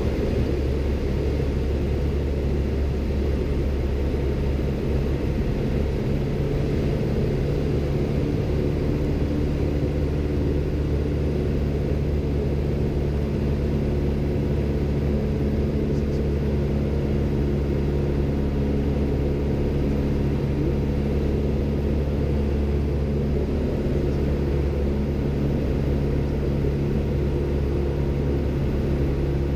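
Engine and propeller of a single-engine light aircraft droning steadily in cruise, heard from inside the cockpit.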